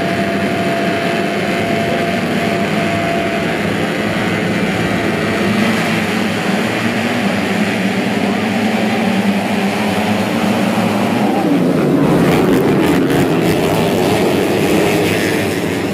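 A pack of modified underbone race motorcycles revving together at the start gate and accelerating away down a dirt track. The engines run continuously and grow louder about twelve seconds in.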